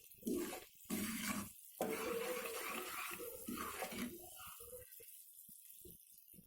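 Sugar syrup boiling in a pan: a soft bubbling hiss that fades away over the last two seconds or so.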